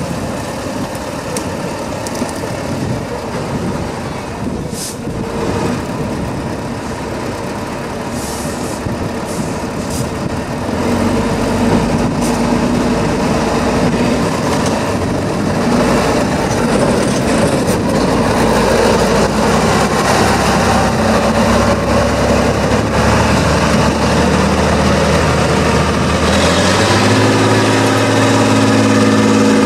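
Tatra 813 8x8 trial truck's heavy diesel engine working hard on steep off-road ground, getting louder about eleven seconds in and stepping up to a higher, steadier pitch near the end as the throttle opens for the climb. A few sharp clicks and knocks come early on.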